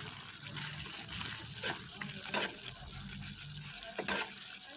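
Afritada stew in tomato sauce bubbling in a pot as it is stirred, with a few sharp clicks of the spoon against the pot.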